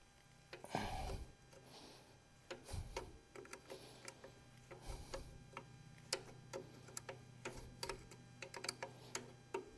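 Scattered light clicks and taps of hand tools and parts being worked during a tractor teardown, irregular and quick, over a faint steady low hum.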